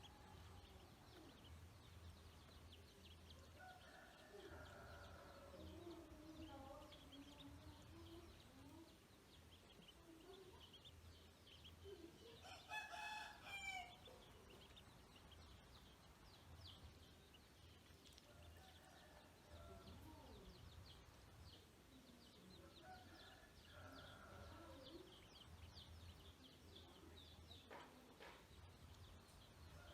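A rooster crowing, faint and distant, several times; one crow about halfway through is louder and lasts about a second and a half. Small high chirps are scattered throughout.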